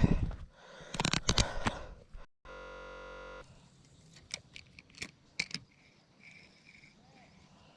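Fishing gear being handled in a boat: a quick run of sharp clicks and rattles about a second in, then a few fainter clicks around four to five seconds. In between there is a brief gap and about a second of flat, steady hum.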